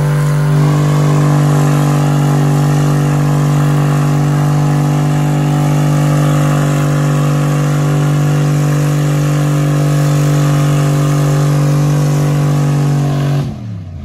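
Dodge Dakota V8 held at steady high revs in a burnout, rear tyres spinning against the pavement. Near the end the revs drop away sharply as the throttle is let off.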